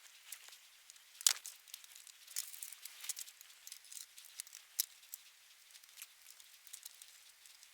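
Faint, scattered small clicks, taps and rustles of hands handling the parts of a desoldering tool as it is put back together, with a sharper click a little over a second in.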